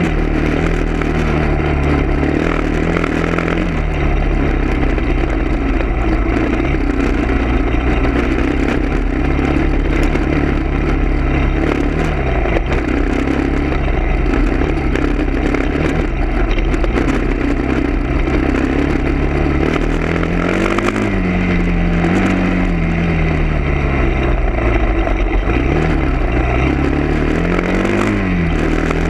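A motor vehicle engine running steadily, its pitch rising and falling several times in the second half as the engine speed changes.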